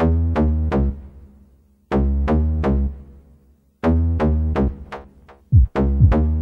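Electronic background music: sharp synthesizer chord hits with a heavy bass come in groups of three about every two seconds, and from about five and a half seconds in, quick falling drum-machine booms join them.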